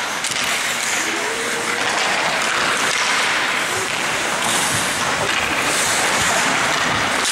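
Ice hockey play: a steady hiss of skate blades scraping the ice, mixed with the general noise of a busy rink.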